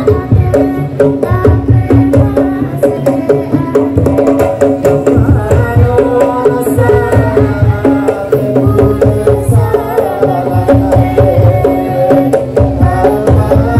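Madurese daul percussion ensemble playing loudly: fast, dense drumming with a melody carried above it.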